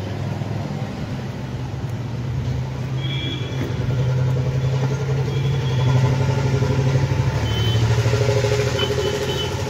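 A steady low engine hum that shifts to a lower pitch a few times.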